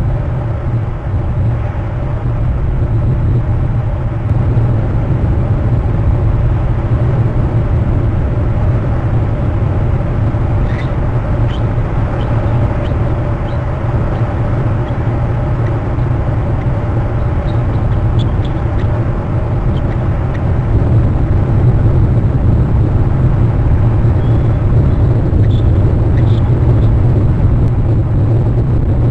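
Steady low wind rumble buffeting an outdoor webcam microphone, with a few faint short high chirps from about ten seconds in.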